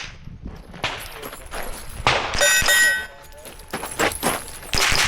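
Several rimfire rifle shots, with steel target plates clanging and ringing as they are hit; one plate rings clearly for about half a second midway.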